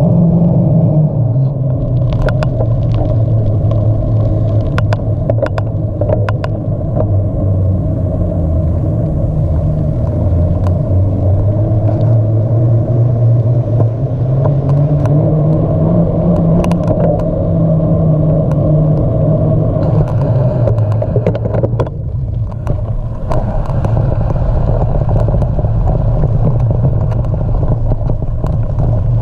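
Steady rumble of a bicycle being ridden, with a low hum that slowly rises and falls in pitch and scattered sharp clicks and rattles.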